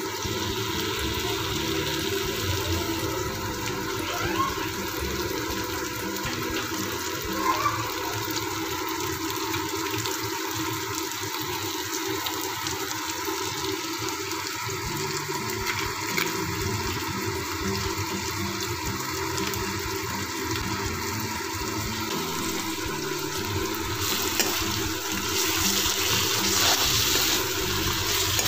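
Sliced onions and tomatoes sizzling steadily in hot oil in a pan, the sizzle growing brighter and a little louder near the end.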